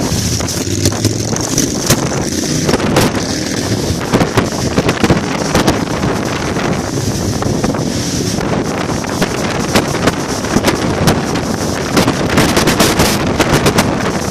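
Gale-force wind buffeting the microphone: loud, continuous wind noise with frequent crackles and gusts.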